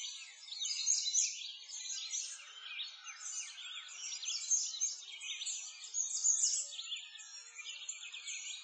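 Many birds chirping and singing at once: a dense, unbroken chorus of quick high chirps and short whistled glides.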